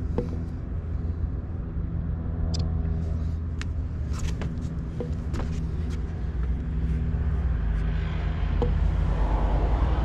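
Steady low motor rumble with an even hum, with a few sharp clicks and taps over it; it grows louder near the end.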